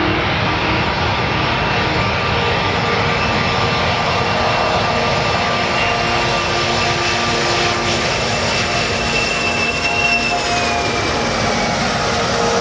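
Jet engines of a four-engined Boeing 747-400 airliner on landing approach: a loud, steady rushing noise with high whining tones, one tone sliding down in pitch near the end.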